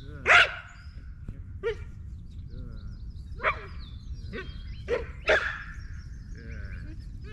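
A dog barking in short single barks, about six of them spaced irregularly, the loudest about half a second in.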